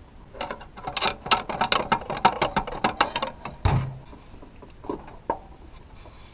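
Steel pry bars clinking and rattling rapidly against a Toyota 3VZ-E V6's crankshaft pulley as they are rocked back and forth to work the pulley off its shaft. A single heavier thud comes a little past the middle, followed by two lone metal clicks.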